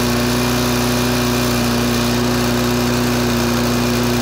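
Briggs and Stratton Sprint 375 single-cylinder mower engine running steadily at an even speed, with no change in pitch, on its newly fitted replacement carburettor.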